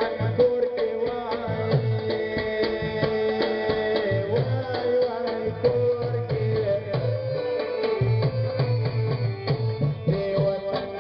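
South Asian folk dance music with a fast, steady hand-drum beat under a sustained melody line.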